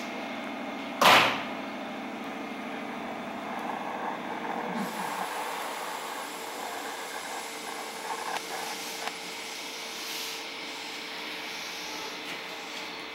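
A short, loud hiss of compressed air from a stationary JR 205-series electric train's pneumatic system about a second in, over the steady hum of the train's onboard equipment.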